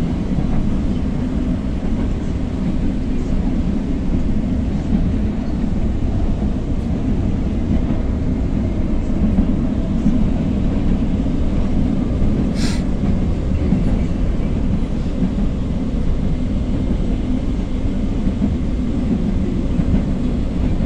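LRT Line 1 light-rail train running between stations, heard from inside the carriage: a steady low rumble of wheels and motors. One brief sharp high sound comes about twelve seconds in.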